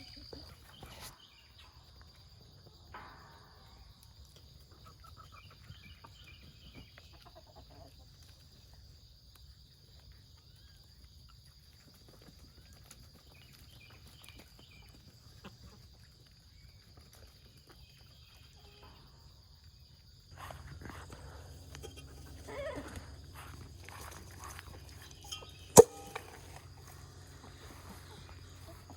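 Faint farm animal sounds over a steady high hum, with one sharp click a few seconds before the end.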